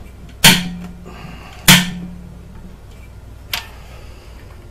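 Two sharp, loud cracks about a second apart, each followed by a brief metallic ring, then a lighter click near the end: tight cylinder head bolts on a Subaru EJ253 engine breaking loose under a breaker bar and socket.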